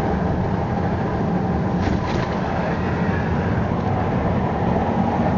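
Steady low rumble of a car's engine and tyres on a wet road, heard from inside the cabin as it drives along.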